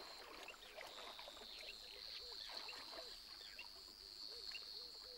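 Faint wetland chorus: a steady high-pitched insect trill with many short, repeated frog calls at irregular intervals beneath it.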